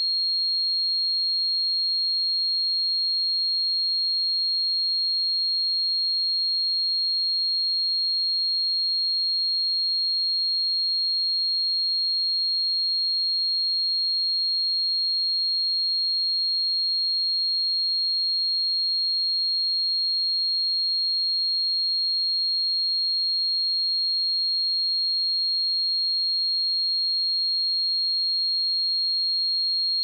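A steady, unbroken pure sine-wave test tone at 4258 Hz, a single high-pitched whistle-like pitch held at constant level.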